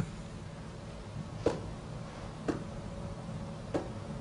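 Quiet room tone with a steady low hum, broken by three faint short ticks spread across it.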